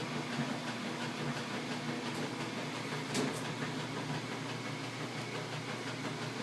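Washing machine running with a steady mechanical hum and rumble, with a brief click about three seconds in.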